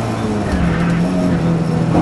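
Ford historic rally car's engine heard from inside the cabin: the high-revving note drops off as the throttle is lifted, then about half a second in it settles into a steadier, lower note.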